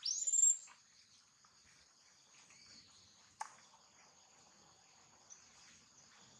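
A baby macaque gives one short, high squeal that rises steeply in pitch near the start, over a steady high-pitched insect chorus. A single sharp click comes about three and a half seconds in.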